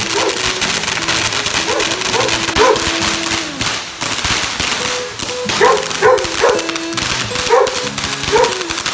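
Ground fountain firework spraying sparks with a continuous dense crackle, while a dog barks in short repeated yaps, in little groups of two or three.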